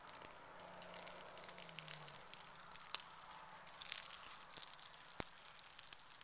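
Faint breath being blown into a smouldering tinder bundle of damp birch bark, then light crackling and hissing as the tinder bursts into flame about four seconds in.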